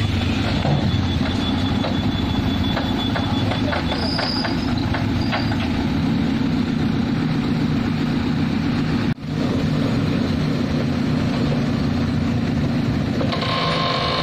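Heavy road-construction machinery running steadily, a diesel engine drone with light ticks and clatter over it. The sound drops out for an instant about nine seconds in, then carries on.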